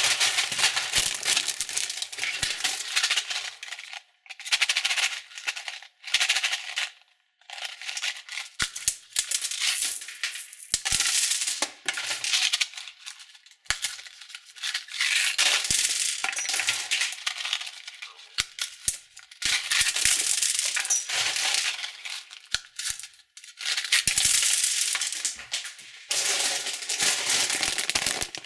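Small candies rattling and plastic wrappers crinkling as packs of sweets are handled and shaken. This comes in bursts of a second or several, with brief pauses between them.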